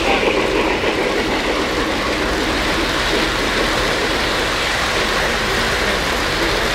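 Two O-scale three-rail model trains running past on neighbouring tracks, their metal wheels rattling steadily over the rails.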